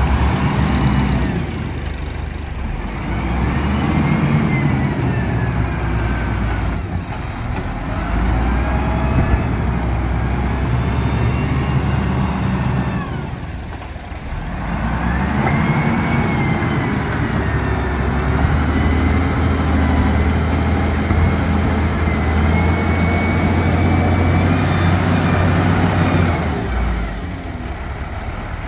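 Heavy vehicle engine running hard, its pitch rising and falling in three long surges with brief dips between them, as if working under load.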